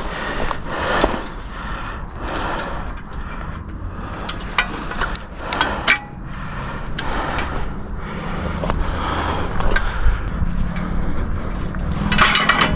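Scattered clicks, knocks and rattles of the metal frame of a Kill Shot Throne hunting seat being set up and adjusted by hand, with rustling between them.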